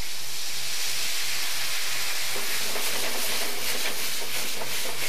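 Red wine vinegar hitting a hot frying pan of onion, garlic and flour, sizzling with a steady hiss as it boils off in a burst of steam.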